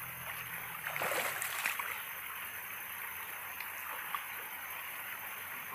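Steady trickle of flowing creek water, with a brief louder splash of water about a second in.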